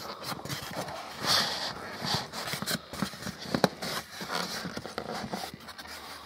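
Styrofoam packing being handled inside a cardboard TV box: irregular rubbing and scraping of foam against cardboard, with short light knocks and a few louder rustles.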